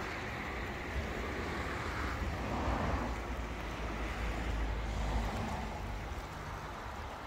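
Wind blowing across the microphone: a steady rushing with a low rumble that swells and eases.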